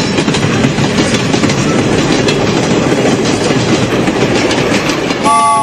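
Train running on rails with a steady rolling clatter of wheels, dubbed over the toy train's journey. A three-note train horn chord sounds near the end.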